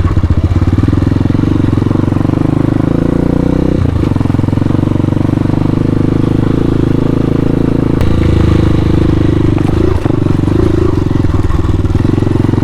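Hawk 250 dual-sport motorcycle's 250cc single-cylinder engine running under riding load. Its note shifts in pitch a few times as the throttle changes.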